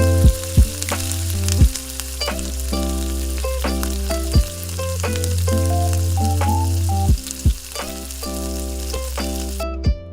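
Food frying in a hot pan, a steady sizzle that cuts off near the end, under light plucked-string background music.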